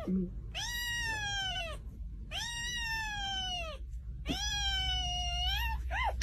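Tabby kitten giving three long, drawn-out meows, each rising and then falling in pitch, with a short fourth call near the end.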